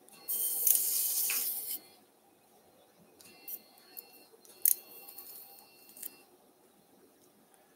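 Electrosurgical unit activated through a monopolar cautery pencil: a steady high activation tone over a sizzling hiss of tissue being cut. There is one long burst of about a second and a half near the start, then two shorter bursts around the middle.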